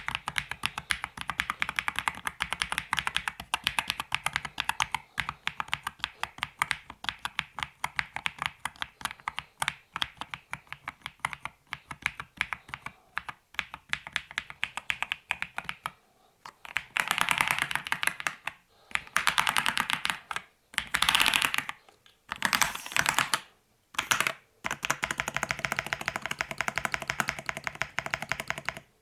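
Typing on an Akko SPR 67 custom mechanical keyboard with stock switches: a steady patter of keystrokes, with several louder flurries of very fast typing in the middle.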